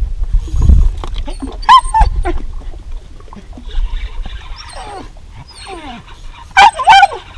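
A dog whining: several short, high-pitched cries, some falling in pitch, with the loudest pair about a second before the end.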